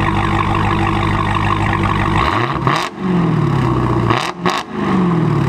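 Dodge Challenger SRT Hellcat's supercharged 6.2-litre Hemi V8, its mid-mufflers deleted, idling loudly through the exhaust. It is then blipped twice, a bit over two seconds in and again about four seconds in, the revs shooting up and falling back to idle each time.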